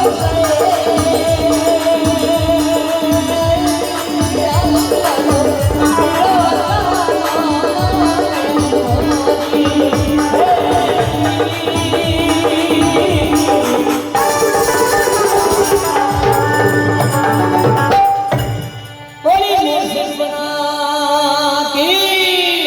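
Rajasthani folk devotional music: a wavering melody sung over a steady drone, with fast hand-drum strokes and rattling percussion. The music dips and breaks off briefly near the end, then picks up again.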